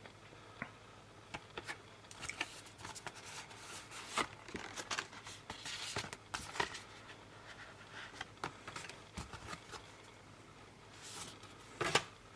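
Faint handling of cardboard and paper packaging from a Blu-ray collector's box set: scattered rustles, light taps and slides as the cards and inner packaging are moved.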